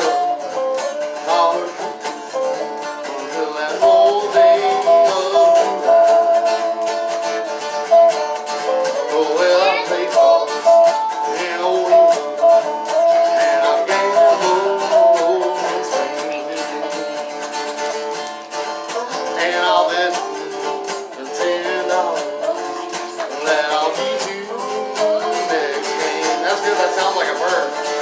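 Acoustic folk band playing, with banjo and guitar picking a tune.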